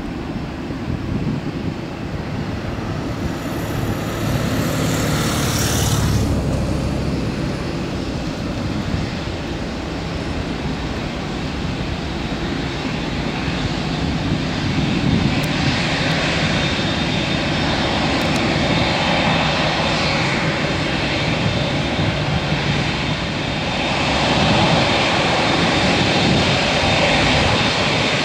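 Boeing 787-9 Dreamliner's jet engines running at low taxi power, a steady rumble and hiss, growing louder near the end as the aircraft turns to face the microphone.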